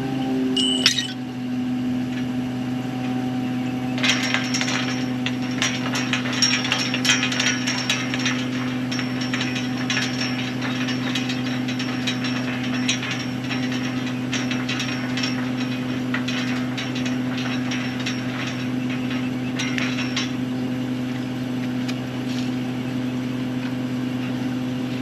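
An engine runs steadily at idle. From about 4 to 20 seconds in, a fast run of metal clicking and ratcheting sits over it, from steel pipe and tools being worked.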